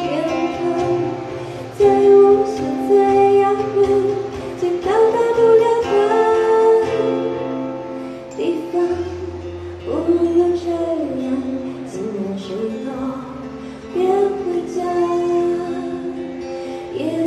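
A woman singing a song in Mandarin into a microphone, with acoustic guitar accompaniment; some notes are held long.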